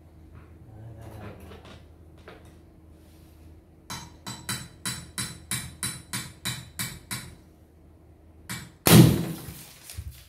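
Sharp knocks on a small traditional popcorn machine, struck with a hand tool: about a dozen at roughly four a second. About nine seconds in comes a single much louder burst that dies away over about a second.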